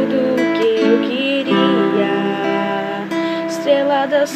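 Acoustic guitar strumming chords, with a woman singing a wordless melody over it.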